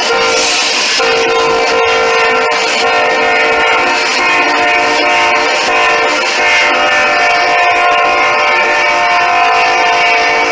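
Locomotive air horn sounding a chord of several steady tones, broken briefly within the first second and then held long and unbroken: a horn show played for trackside railfans.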